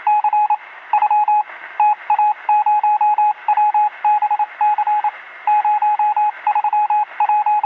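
Rapid electronic beeping on a single pitch, in uneven groups of short beeps like Morse code, with a thin, narrow-band, radio-like tone.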